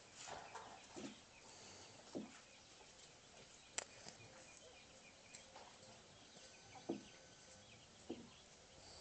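Near silence: faint outdoor background with a few short, low sounds spread through it and one sharp click a little before the middle.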